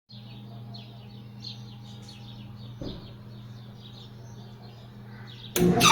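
A low steady hum with faint, quickly repeated bird chirps, then about five and a half seconds in a Maytag dryer starts up loud with a harsh squealing scrape: the noise fault the dryer has.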